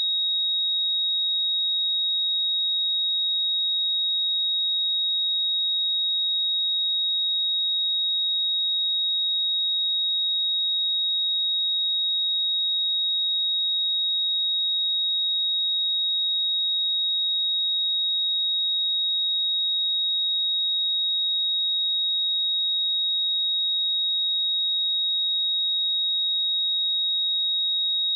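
A steady pure 3778 Hz sine-wave test tone: one high, unwavering pitch at constant loudness.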